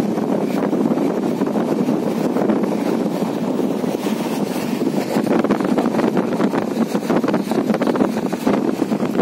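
A train running at speed, heard from on board: a steady rumble of wheels on track with wind on the microphone. From about four seconds in, a quick run of clicks and clatter joins it as the train crosses a river bridge.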